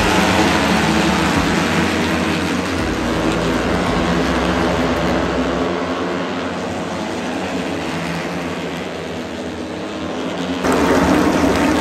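A pack of racing motorcycles at full throttle, many engine notes overlapping and slowly fading as the bikes pull away through the corner. Near the end the sound jumps abruptly louder as the pack is heard close again.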